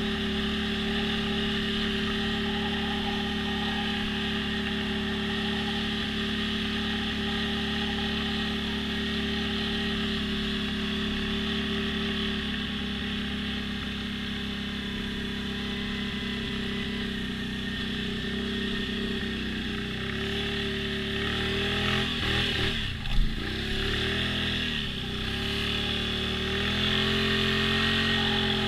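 ATV engine running at a steady speed, then revving up and down repeatedly in the last third, with one sharp knock in the middle of the revving.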